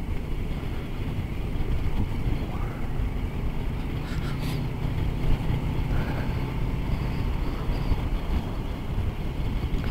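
Motorcycle riding at road speed, heard from the rider's seat: a steady low rumble of engine and wind, with an engine hum that holds steady for a few seconds in the middle.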